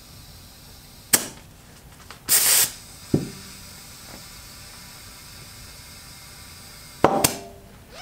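Beads of an 18-inch rear dirt bike tire snapping onto the rim as the tire is inflated: a sharp crack about a second in and another near the end. Between them come a short burst of hiss and a single knock.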